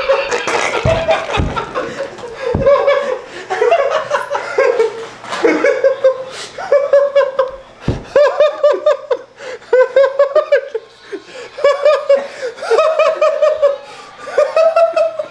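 A man laughing hard close to the microphone, in repeated bouts of short pulses, with a few low thumps in the first few seconds.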